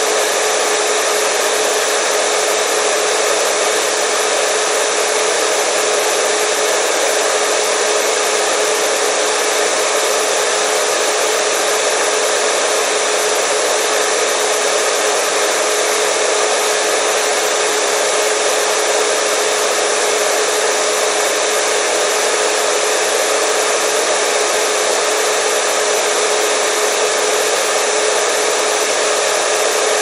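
Steady white noise for soothing a crying baby: an even, unbroken hiss with a thin steady hum running through it.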